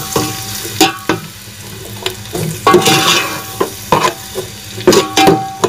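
Chopped onions sizzling in hot ghee in a metal degchi, freshly added and starting to fry, while a spoon stirs them, scraping against the pot several times.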